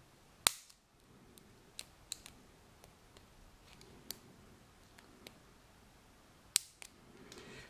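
Faint metallic clicks of lock picking tools working the pins of an ASSA Ruko 2 padlock, with two sharper clicks, one about half a second in and one near the end.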